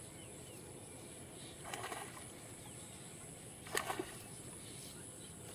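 Water splashing briefly twice, about two seconds in and again just before four seconds in, as men wade and haul a seine net through a fish pond, over a faint steady outdoor background.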